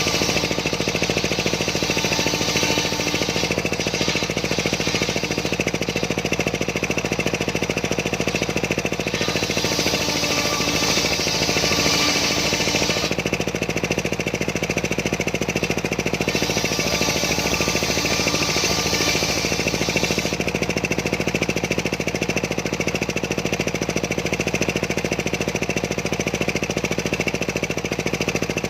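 Engine-driven homemade circular saw running steadily, its blade cutting sengon wood. The higher hiss of the cut swells twice, about ten and seventeen seconds in, each time lasting a few seconds.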